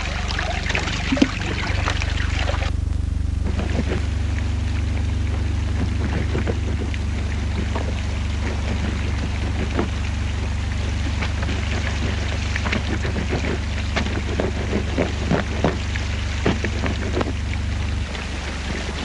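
Water splashing and sloshing in a tin washtub as clothes are washed by hand, in many small irregular splashes over a steady low hum.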